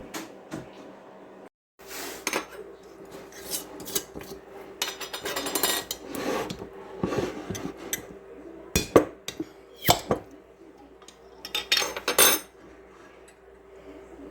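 Pots, pans and utensils clinking and clanking in a kitchen, a string of separate knocks, with a faint steady hum underneath. The sound drops out completely for a moment about a second and a half in.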